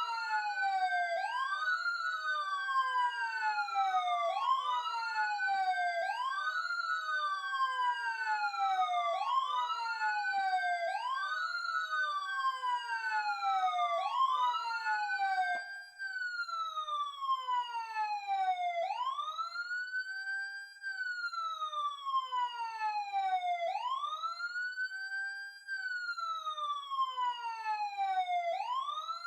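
Police sirens wailing, each wail rising quickly to a short peak and then falling slowly. Two sirens overlap out of step until about halfway, when one drops out. A single siren carries on with slower, longer wails.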